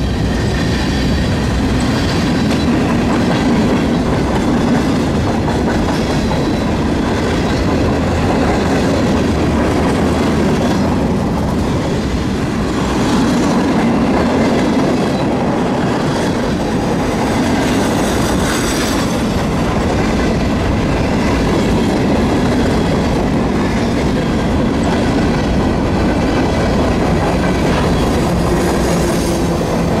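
Freight cars, tank cars and covered hoppers, rolling past close by: a steady rumble with the rhythmic clatter of wheels over the rail joints, and a faint high wheel squeal now and then.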